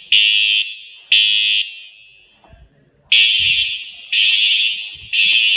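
School fire alarm horns sounding the temporal-three evacuation signal: half-second blasts a second apart in groups of three, here two blasts, a pause of about a second and a half, then three more. It is a real alarm activation, not a drill.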